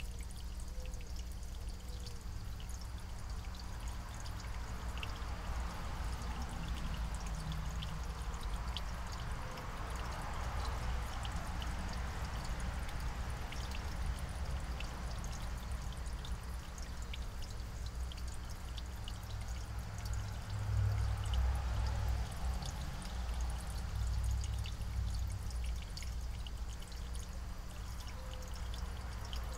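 Steady ambient noise: a low rumble with a soft hiss over it, swelling briefly about two-thirds of the way through, with faint scattered ticks.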